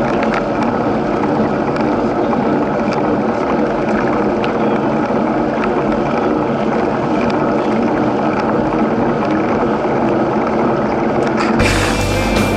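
Steady rushing noise of a mountain bike ride picked up by the rider's camera: tyres and wind, with a few faint clicks. About a second before the end, music with a heavy bass beat comes in.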